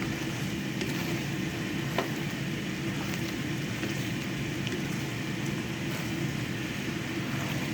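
Pork ribs in a soy-based braising sauce bubbling and sizzling steadily in the pot as the sauce reduces to a glaze, with a few light clicks.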